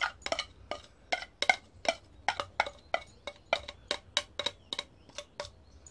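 Metal spoon tapping and scraping against a small glass bowl, a quick irregular run of clinks about four a second, as chopped red onion and garlic are knocked out into a bowl of marinade.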